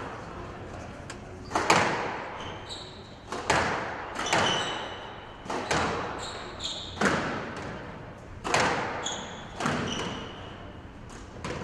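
A squash rally: the ball struck hard about eight times, roughly one hit every second to second and a half, each crack ringing briefly in the walled court. Between the hits come short high squeaks of court shoes on the floor.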